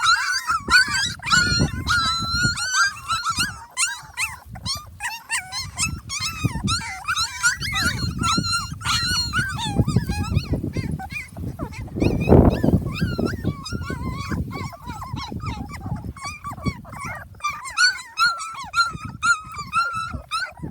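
A litter of young puppies whimpering and squealing continuously, many thin high-pitched cries overlapping, with low rumbling and shuffling noise beneath.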